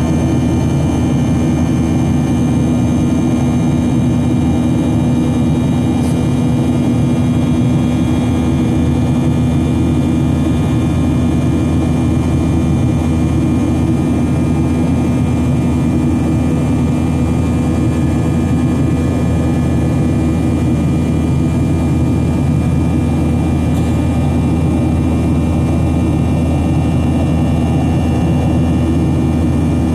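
Steady cabin noise inside a Boeing 737-800, its CFM56-7B jet engines running at constant power with a low hum and fixed tones, over the rush of air.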